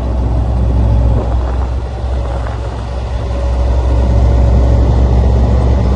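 Heavy farm machinery's diesel engine running steadily with a low, continuous drone.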